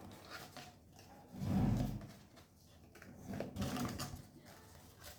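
Handling noise as a flip phone is moved about in the hands: a soft low bump or rub about a second and a half in, and a fainter one near four seconds.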